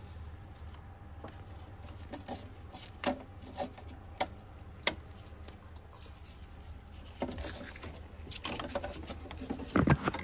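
Scattered clicks and knocks of hand tools working against the engine as the serpentine accessory belt is released at its tensioner and pulled off the pulleys. A few single knocks come first, then a busier run of knocks in the last few seconds, the loudest near the end, over a steady low hum.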